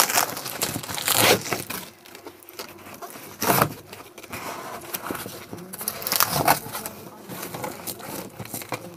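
A cardboard shipping box being pulled open by hand, its flaps scraping and tearing, with plastic packaging crinkling, in irregular rustling bursts.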